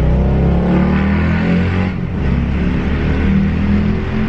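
A car engine accelerating loudly: its pitch climbs, drops about two seconds in as it shifts up a gear, then climbs again.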